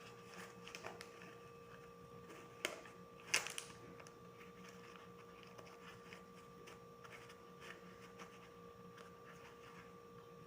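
Faint rustling and light clicks of hands handling a ribbon and a wrapped paçoca package while tying it, with two sharper clicks about two and a half and three and a half seconds in, over a steady faint hum.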